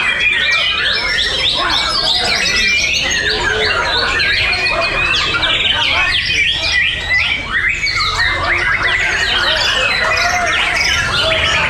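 Several caged white-rumped shamas singing at once in competition, a dense chorus of rapid overlapping whistled phrases that never pauses.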